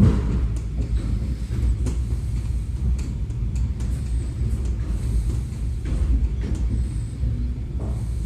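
Suburban electric train running, heard from inside the carriage: a steady low rumble with a sharp knock at the start and a few fainter clicks and knocks.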